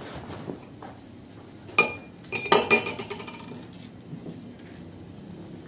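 Glass clinking: one sharp, ringing clink about two seconds in, then a quick cluster of clinks and knocks.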